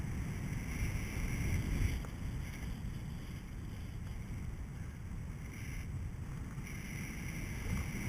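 Airflow buffeting the microphone of a camera carried in free flight under a paraglider: a steady, rumbling wind noise with no engine.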